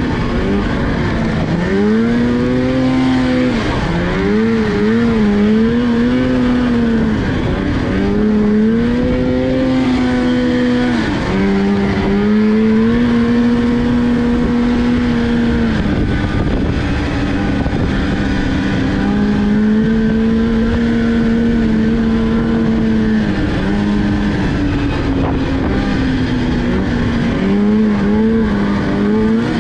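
Snowmobile engine running under way, its pitch rising and falling again and again as the throttle is worked, over a steady rush of track and wind noise.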